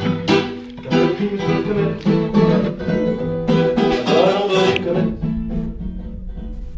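Background music led by strummed acoustic guitar, growing quieter and sparser about five seconds in.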